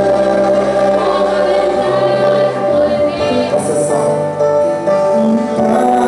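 Christian worship music with sung vocals over sustained instrumental accompaniment.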